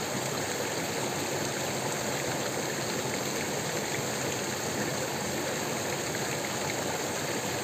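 Steady rushing of a fast-flowing, shallow rocky stream.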